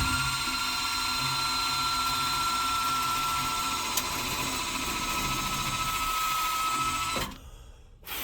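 Steady machinery whine with a low hum and an even air hiss, which drops away abruptly about seven seconds in.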